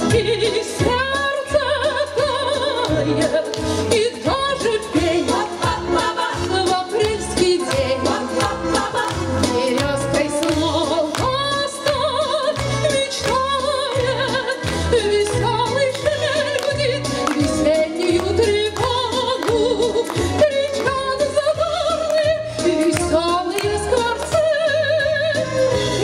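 A women's vocal ensemble sings together with vibrato over an instrumental accompaniment with a steady bass beat.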